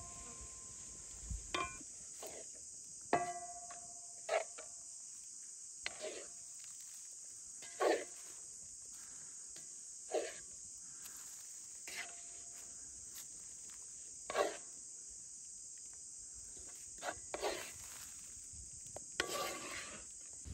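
Wooden spoon scraping and knocking against a metal pan as a ground-beef filling is stirred and scooped out, a scrape or knock every second or two, some knocks ringing briefly. A steady high insect chirring runs underneath.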